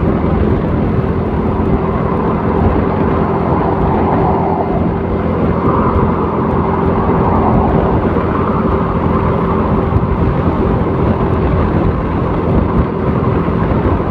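Motor scooter riding in traffic: a steady engine hum under a rumble of wind and road noise.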